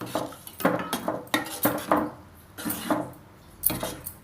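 A metal spoon knocking and scraping against a cooking pot, a run of about eight clinks with short pauses, as the salt and turmeric are stirred into the dal.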